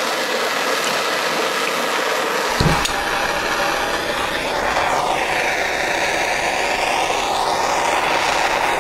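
Steady hissing as molten silver pours into dry ice. About two and a half seconds in, a thump cuts it off, and a fuller rushing noise with slow sweeping whooshes follows.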